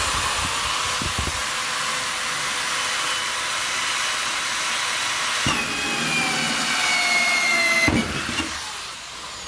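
Power drill with a hole saw cutting through the wall of a plastic tub: a steady grinding rasp, with a whine that sinks in pitch over the last couple of seconds before the drill stops about eight seconds in.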